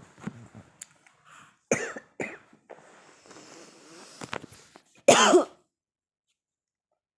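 A few short, irregular cough-like bursts. The loudest and longest comes about five seconds in.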